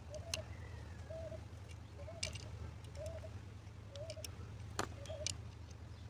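A bird calling a short, arched note over and over, about once a second. Light clicks from the alternator's brush holder and regulator being fitted and pressed in by hand come through it, the sharpest click about five seconds in, over a steady low hum.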